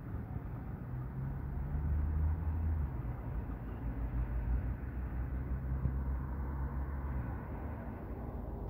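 A motor vehicle engine running, a low steady hum that swells about a second in and fades near the end.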